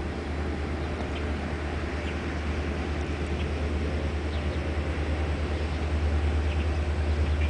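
Diesel locomotives of a BNSF local freight train running as they approach, a low rumbling drone that grows gradually louder.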